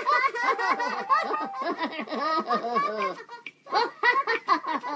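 Cartoon characters laughing: a quick run of high, bouncing laughter that breaks off briefly about three seconds in, then picks up again.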